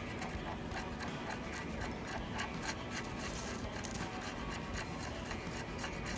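The spine of a CRKT Fossil folding knife scraping down a ferro rod in quick repeated strokes, about two to three a second, striking sparks to light tinder.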